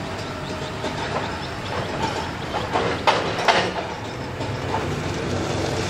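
Telehandler forklift's diesel engine running as the machine drives over rough ground, with a few sharp metal clanks and rattles about three seconds in.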